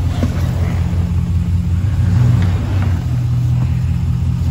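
2019 Ram Rebel pickup's engine running at a low idle with a steady, evenly pulsing rumble, swelling slightly about two seconds in, as the truck creeps in four-wheel-drive low range to press a tyre's bead loose.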